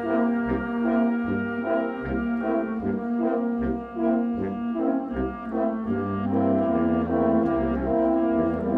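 Brass band playing a slow processional march, with held chords and a low bass line moving underneath.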